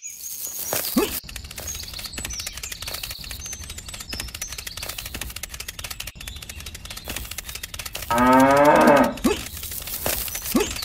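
A cow moos once, a single call about a second long, about eight seconds in. Under it run rapid faint clicking and short high chirps.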